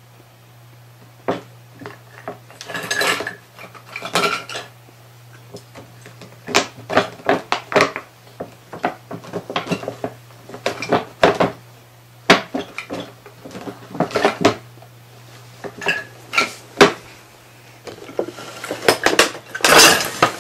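Christmas tree ornaments, baubles and star ornaments, clinking and rattling against each other as a cat paws at the pile, in irregular clusters of sharp clicks with short pauses between, busiest near the end.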